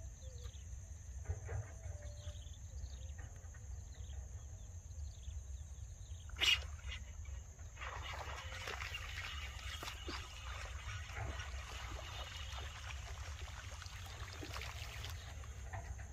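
Insects buzzing steadily on one high thin note. A single sharp sound comes about six and a half seconds in, then about seven seconds of dense crackling and rustling.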